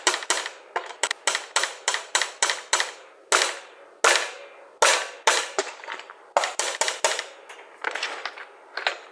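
A spoon striking a dog bowl again and again while mixing dog food with meat and yogurt: about twenty sharp knocks at an uneven pace of two or three a second.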